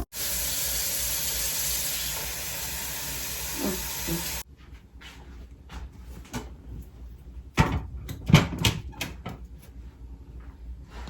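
A steady hiss that cuts off abruptly about four seconds in, followed by several short light knocks and clatters.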